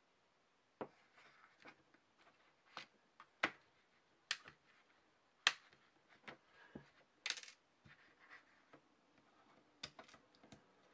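Small screws and hand tools being handled at a workbench: irregular light clicks and taps of small metal parts against a plastic parts organizer and the tabletop, starting about a second in.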